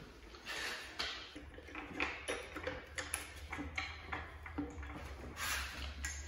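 Steel square tubing being set on a metal work stand and fastened with a C-clamp: scattered light knocks, clicks and scrapes of metal on metal.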